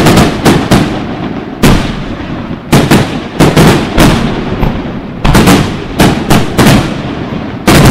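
Aerial firework shells bursting in quick succession: a dozen or more loud, sharp bangs at irregular intervals, some coming two or three within a second, with rumbling reverberation filling the gaps between them.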